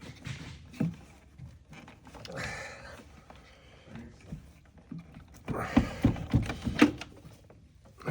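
Ratchet, socket extension and other hand tools clicking and knocking against metal while loosening intake bolts on an engine, with a cluster of loud sharp knocks a little past the middle.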